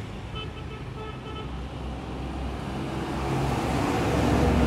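Road traffic: a motor vehicle running nearby, its low rumble growing steadily louder over the last few seconds.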